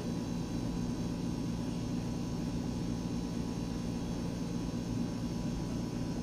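Ceiling fan running: a steady low hum with a faint hiss.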